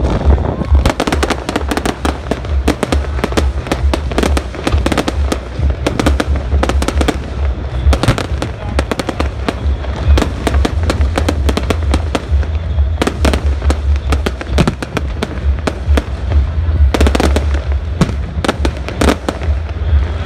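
Fireworks going off in quick, dense strings of sharp bangs and crackles, several a second, with a steady low rumble underneath.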